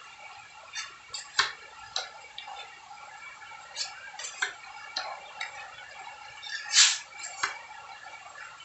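Metal putty knife scraping and tapping against a concrete wall while wall putty is spread: scattered clicks and short scrapes, with one longer, louder scrape about seven seconds in.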